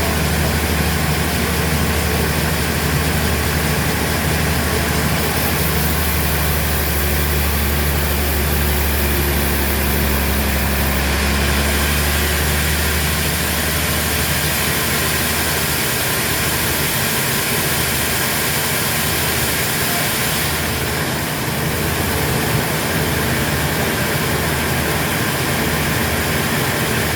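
Heavy sawmill machinery running steadily: a loud low engine hum under a constant hiss. The low hum becomes unsteady about halfway through.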